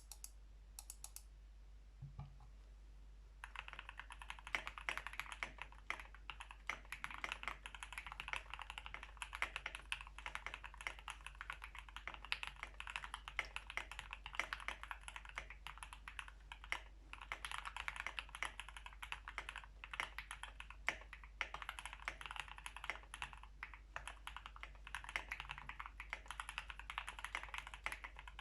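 A Tofu65 mechanical keyboard with a brass plate and lubed, filmed Alpaca v2 linear switches being typed on. A few isolated key clicks come first, then fast, continuous typing from about three and a half seconds in.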